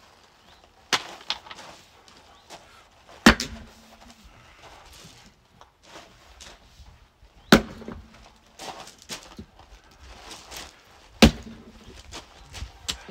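Firewood being split by hand: three heavy, sharp blows about four seconds apart, each with a short low ring after it, and lighter knocks of wood between them.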